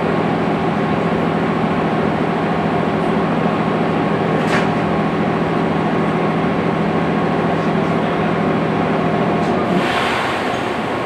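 JR 205 series electric train standing at a station, its onboard machinery giving a steady hum with several steady tones. About nine and a half seconds in, the low part of the hum cuts off and a short hiss of air follows.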